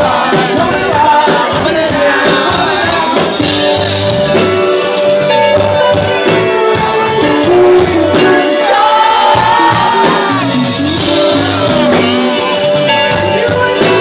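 Live rock band playing loud through a club PA: a male lead vocalist singing over drums, guitars and keyboards, heard from within the audience.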